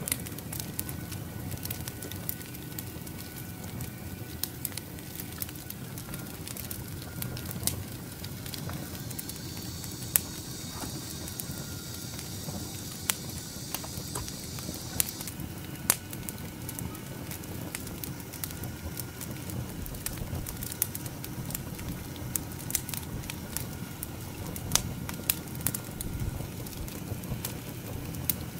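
Split firewood burning in a small fire pit, crackling with sharp pops scattered throughout over a steady low rush of flame. For several seconds in the middle a high, steady whirring sound joins in, then cuts off suddenly.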